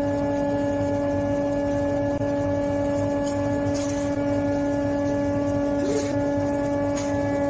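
Table saw running free between cuts, its motor and blade giving a steady hum with no wood in the blade. A few light clicks come in the middle as timber is handled on the table.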